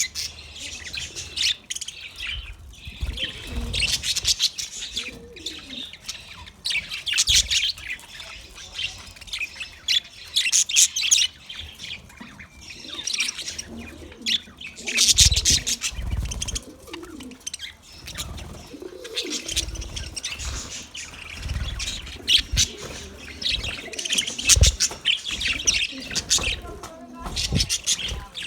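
Small birds chirping and twittering in rapid, high-pitched bursts that come and go every second or two, with occasional low thumps underneath.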